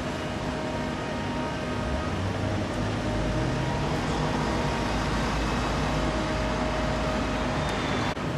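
Steady city traffic noise: a low rumble with a faint steady hum, growing louder about two seconds in.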